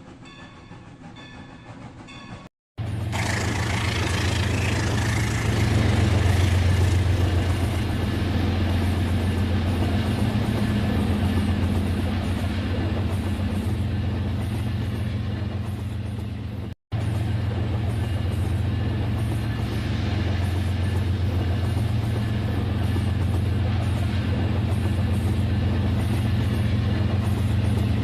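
Rail King remote-control toy train running: a loud, steady motor hum. A fainter sound comes first, and there are abrupt cuts about two and a half seconds in and again past the middle.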